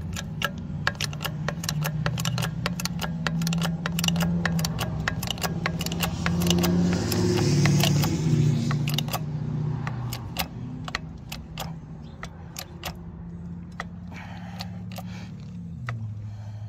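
A hydraulic bottle jack being pumped under a road grader to press a new tapered roller bearing onto a Jeep differential carrier: a run of sharp metallic clicks, irregularly spaced, several a second, over the steady hum of an engine running. The hum drops in pitch near the end.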